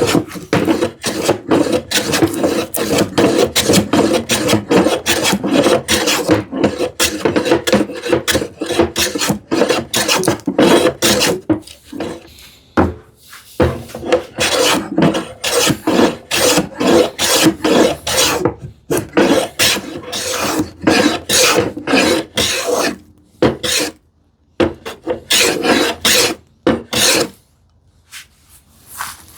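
Bench plane set for a deep cut, shaving the edge of a wooden drawer front in quick repeated strokes, with a few short pauses.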